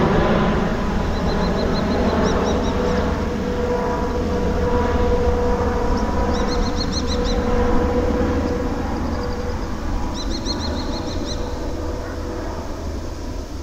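Jet airliner's engines climbing away during a go-around from an aborted landing: a steady rumble with a held droning tone that slowly fades over the last few seconds. A small bird chirps in quick high series several times over it.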